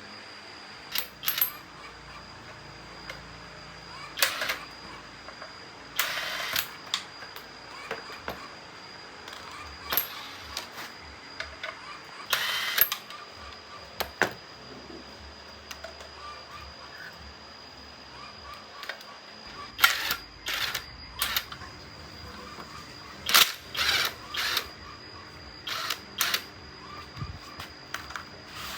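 Hand tools and small metal parts of a petrol water pump clicking and clattering off and on during repair work, with a few short, louder rustling bursts. A faint steady high tone runs underneath.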